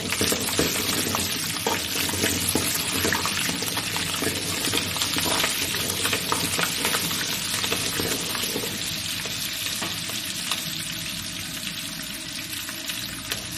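Green chillies and curry leaves sizzling and crackling in hot sesame oil in a kadai, with many small pops, stirred with a steel ladle. The frying eases off slightly near the end.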